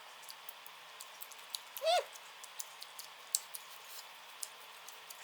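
One short, high-pitched call from a pet animal, rising then falling, about two seconds in, among faint scattered clicks.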